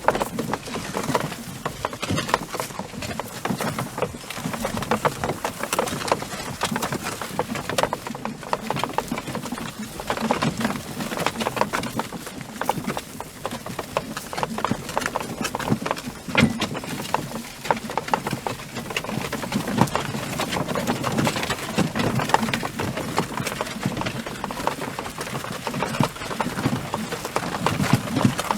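Horse hooves clip-clopping, a dense, irregular run of knocks with no break.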